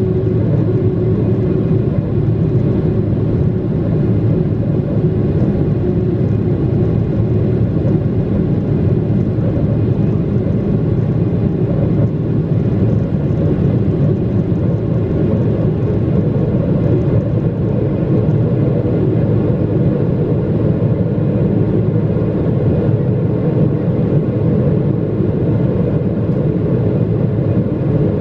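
Steady, loud rumble of a Boeing 777-300ER's GE90 jet engines and airflow heard inside the passenger cabin during the takeoff flight.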